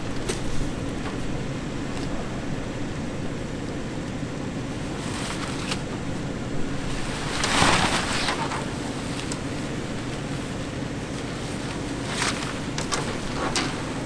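Sea waves washing onto the beach, one breaking louder about halfway through, over a steady low hum.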